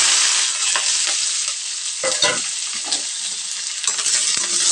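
Sliced onions tipped into hot oil with cumin seeds in a steel kadai, setting off a loud frying sizzle that starts all at once and keeps going, with a few knocks about two seconds in.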